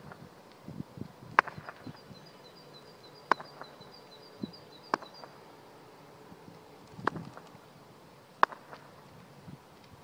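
Outdoor ambience with about five sharp, isolated knocks spread over the stretch, and a faint, high chirping call repeated rapidly for the first few seconds.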